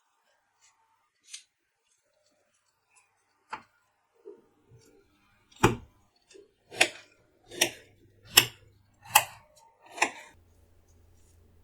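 A knife cutting a cantaloupe: a few faint clicks, then six sharp chops about a second apart.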